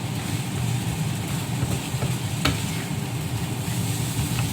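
Vegetable filling sizzling in a frying pan as it is stir-fried, with a steady low hum underneath and one sharp knock of the utensil on the pan about halfway through.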